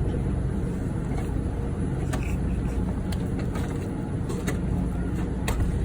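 Steady low hum of a store's background machinery, refrigeration and ventilation, with scattered light clicks and taps from handling or a shopping cart.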